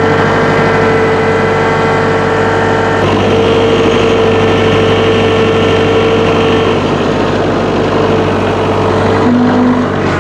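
An engine running steadily at idle, one unchanging pitch throughout, with a harsher upper hiss joining about three seconds in.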